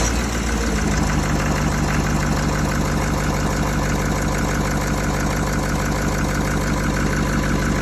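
Ford 6.7L Power Stroke V8 turbodiesel idling steadily just after starting, its speed settling down within the first second. It runs smoothly now that its ECM communication has been restored.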